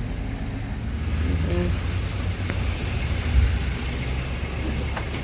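Low steady rumble of a car and road traffic, swelling a little about a second in, with a faint short tone and a single click partway through.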